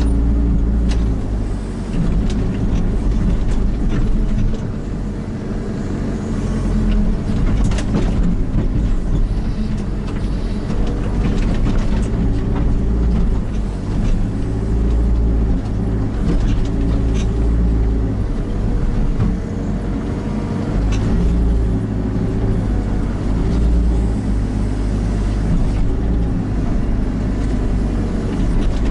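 Kubota KX121-3 mini excavator's diesel engine running steadily as the machine works, with scattered short knocks.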